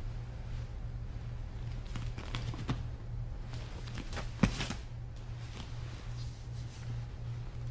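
Rustling of cotton gis and bare feet shifting on training mats, with one sharp thud about four and a half seconds in, over a steady low hum.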